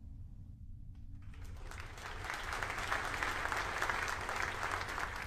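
Applause that starts about a second in and grows louder, over a low steady hum.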